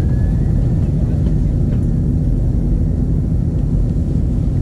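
Steady low rumble of an Airbus A320-232's IAE V2500 engines and the passing air, heard inside the cabin.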